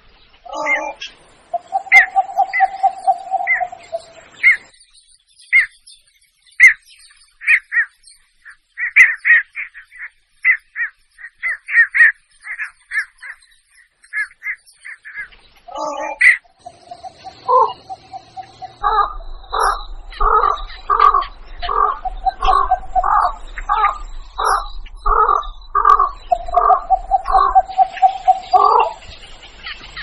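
Recorded blekok (heron) calls played as a hunter's lure: series of short repeated calls, spaced at first, then a faster, evenly timed run of louder calls in the second half, with a few longer held notes between.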